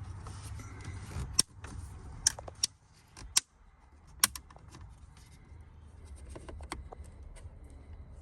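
Scattered plastic clicks and snaps as the auxiliary USB receptacle adapter is pried and unclipped from the dash of a 2020 Chevrolet Silverado 1500. The sharpest snaps come in the first half, followed by lighter ticking and fumbling.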